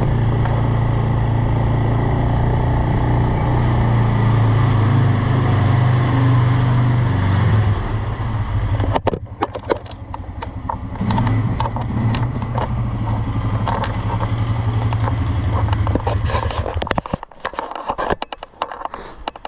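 A motor vehicle engine running steadily, dropping to a quieter, lower run about eight seconds in and shutting off about two seconds before the end, leaving scattered clicks and rustling.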